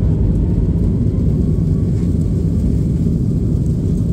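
Steady low rumble of a Boeing 737 MAX 9's CFM LEAP-1B engines and airflow heard inside the passenger cabin.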